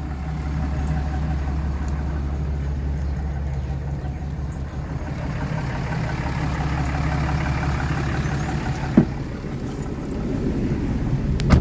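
Dually pickup's diesel engine idling steadily, a deep even rumble, still in stock form before its emissions delete. It grows a little louder for a few seconds in the middle, and there is a sharp click about nine seconds in.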